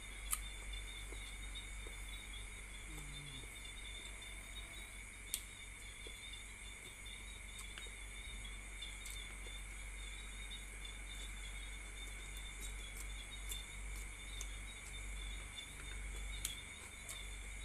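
Crickets trilling steadily in the background, with a low hum and a few sharp clicks.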